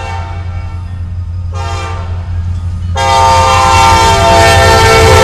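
Norfolk Southern diesel locomotive's multi-chime air horn sounding for a grade crossing: the end of one blast just after the start, a short blast about a second and a half in, then a long, louder blast from about three seconds in. Under it runs the steady low rumble of the locomotive's diesel engine. This short-then-long pattern is the close of the standard crossing signal.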